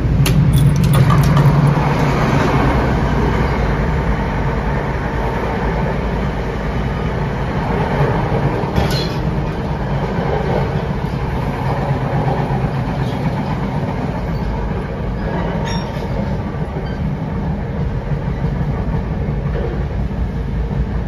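Running noise of an NJ Transit Comet passenger coach, heard from its vestibule: a steady rumble of the wheels on the rails, with a few sharp clicks near the start and one about nine seconds in.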